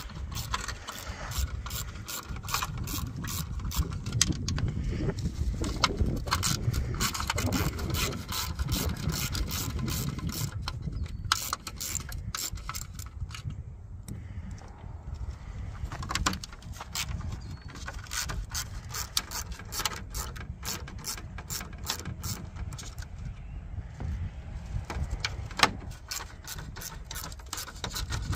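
Hand ratchet clicking in quick runs with short pauses as it backs out 10 mm grille fasteners.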